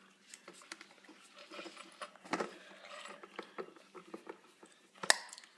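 Scattered small clicks and taps of a table lamp's base and a small screwdriver being handled, with a sharper knock about five seconds in.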